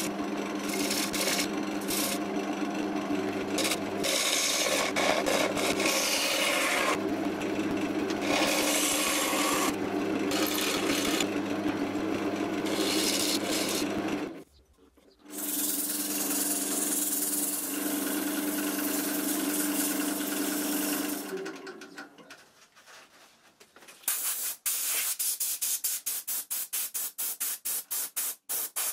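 Wood lathe motor humming while a turning tool scrapes the spinning oak blank, with a short break partway through. The lathe then runs down, and quick back-and-forth strokes of sandpaper by hand on the stopped oak piece follow, several a second.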